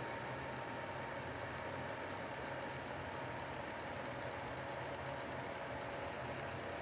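Electric tower heater's fan running steadily: an even whir with a low hum underneath.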